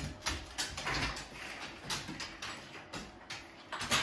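Siberian husky making a rapid, irregular run of short sharp sounds, several a second, agitated at the chickens it sees outside.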